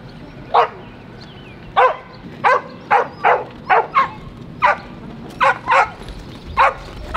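A herding dog barking repeatedly: about eleven short, sharp barks at an uneven pace, some coming in quick pairs.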